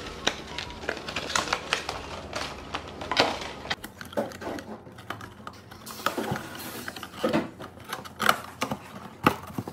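White cardboard boxes being folded and assembled by hand: card flaps creasing, scraping and snapping into place, with irregular clicks and taps. The sharpest snaps come in the last two seconds.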